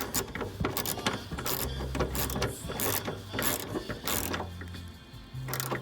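Ratchet wrench with a 10 mm deep socket clicking in quick runs of strokes as it tightens a bolt, with a short lull near the end.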